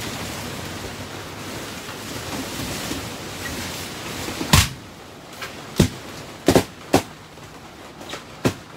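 Balloons popping one after another: a loud pop about halfway through, then about five more sharp pops over the next four seconds. A steady noisy hiss comes first.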